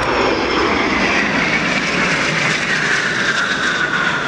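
Formation of Aero L-39 Albatros jet trainers flying past, a steady jet roar with a whine that slowly falls in pitch as they go by.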